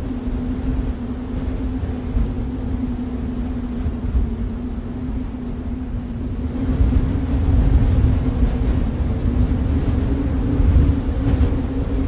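Snowstorm wind ambience: a steady low rumble with a constant droning hum, swelling louder about six and a half seconds in.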